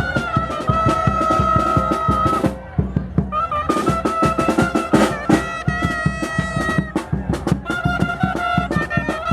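Chirimía band playing: a wind instrument carrying a melody of long held notes over a steady drumbeat. The melody breaks off for about a second near the middle while the drums keep going.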